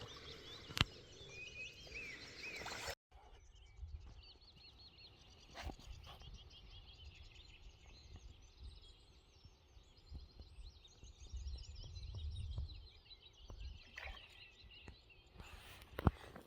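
Small birds singing and chirping throughout, over a low rumble. Two sharp clicks sound, about a second in and near the end, and the sound drops out for an instant about three seconds in.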